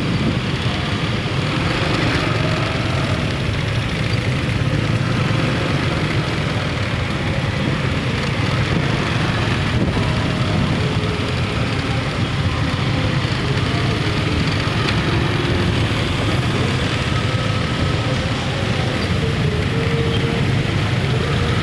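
Steady road traffic noise of vehicles crawling along a busy city street, engines running.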